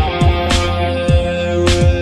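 Instrumental opening of a pop song: held chords over a steady kick-drum beat, with cymbal strikes about half a second in and again near the end.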